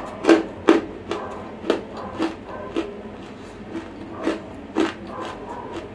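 Close-miked chewing of a mouthful of semi-roasted edible clay (nakumatti): dry crunches, about nine, irregularly spaced, loudest in the first second and thinning out toward the end.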